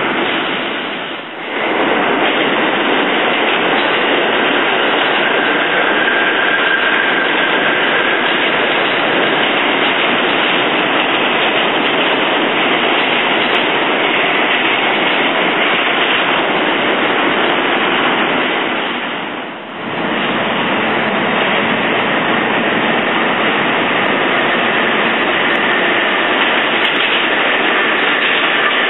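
New York City subway train with Westinghouse propulsion running through the station, a loud, steady rumble and wheel noise on the rails echoing off the tiled walls. A faint high whine rises out of the noise about a quarter of the way through and again near the end. The noise briefly drops twice, about a second in and about two-thirds through.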